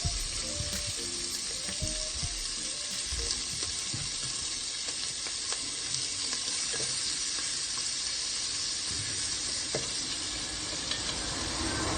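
Shrimp frying in garlic butter in a pan, a steady, even sizzle.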